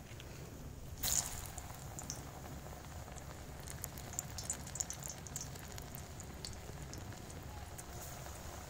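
Gram-flour-battered cauliflower pakoras deep-frying in hot oil in an iron kadai, sizzling and crackling. The sizzling jumps up suddenly about a second in as a fresh piece goes into the oil, and sharper pops follow a few seconds later.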